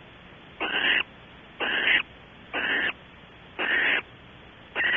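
Barn owl in the nest cavity giving five short, rasping, hiss-like calls about a second apart.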